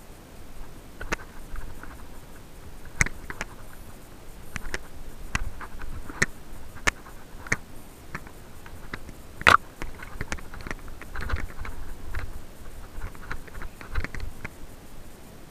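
Mountain bike rattling and clicking as it rolls over a rough dirt singletrack, irregular sharp knocks from the bike's parts over bumps with a low rumble from the tyres, and one loud knock about two-thirds of the way through.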